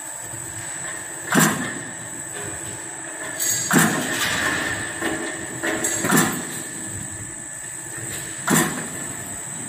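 Automatic dough cutter on a bread production line running, its blade striking four times at an even pace of about one stroke every two and a half seconds over the steady running of the line's machinery.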